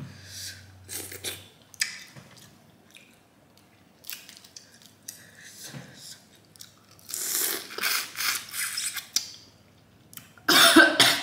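Boiled crawfish being peeled and eaten by hand: shells snap and crack, then come long noisy slurps as the juice is sucked from the shells and head, once about seven seconds in and louder again near the end.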